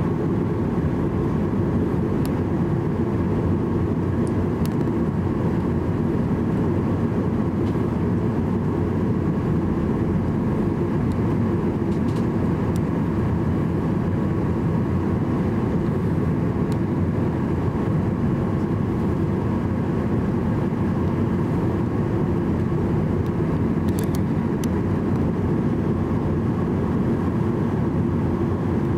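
Cabin sound of a Boeing 737-800's CFM56 engines running steadily at low taxi power, a constant low rumble and hum as the airliner taxis on the runway before takeoff.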